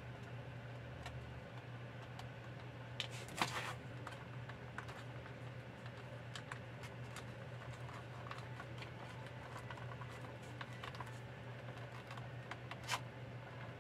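Small clicks and taps of fingers handling wires and the plastic housing of a rechargeable LED emergency light, with a sharper click about three and a half seconds in and another near the end, over a steady low hum.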